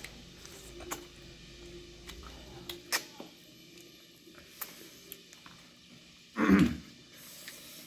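Close-up eating sounds: fingers working rice and fish curry, with scattered lip smacks and chewing clicks. About six and a half seconds in there is one short, loud throat noise.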